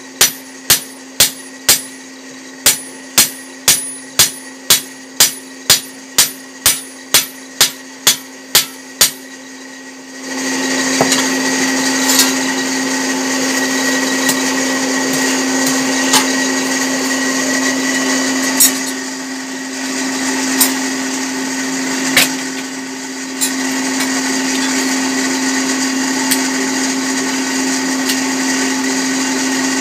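Hand hammer striking a hot fodder-chopper blade on the anvil about twice a second, beating the edge thin, over the steady hum of the furnace's electric blower. The hammering stops about nine seconds in, and a second later an electric grinder starts sharpening the blade, running with a steady whine and a few sharp clicks.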